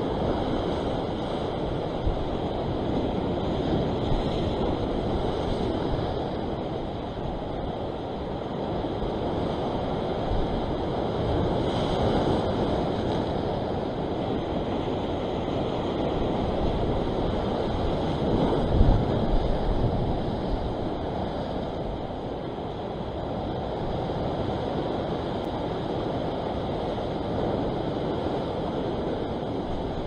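Sea surf washing against a rocky shore, with wind buffeting the microphone. It is a steady rush that swells and eases, with one louder surge about two-thirds of the way through.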